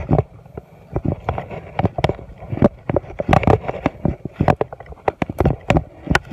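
Footsteps on soft mangrove mud with leaves and fronds brushing past, heard as a run of irregular thumps and knocks, several a second.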